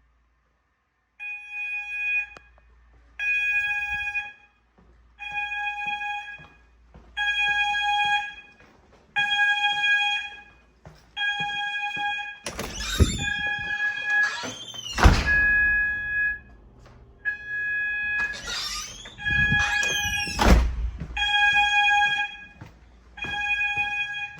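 Fire alarm sounders in a CO alarm test, sounding a pulsed tone: one-second beeps about every two seconds. Twice in the middle, louder sweeping sounds gliding in pitch cut across the beeps.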